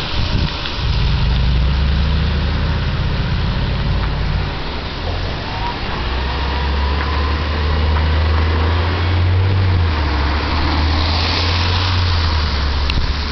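2011 New Flyer C40LFR city bus with a Cummins Westport ISL-G natural-gas engine and ZF Ecomat automatic transmission pulling away and accelerating: a steady low engine drone with a faint rising whine about five seconds in, over the hiss of tyres on a wet road.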